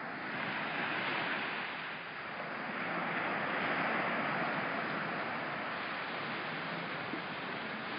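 Small surf breaking and washing up the beach, a steady hiss that eases about two seconds in and swells again a couple of seconds later.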